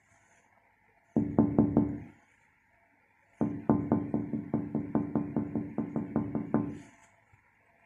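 Finger knocking on a window pane in two quick runs: about five knocks, then after a pause a longer run of about eighteen, roughly five a second, each with a low ring.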